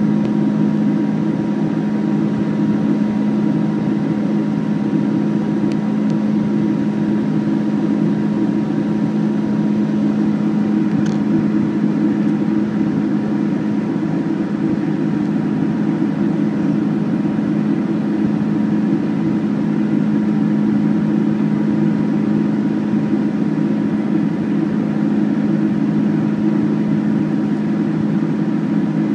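Steady engine and airflow noise inside the cabin of a Boeing 747-400 in the climb after takeoff, its General Electric CF6 turbofans running at climb power. A deep, even drone carries a faint steady whine above it.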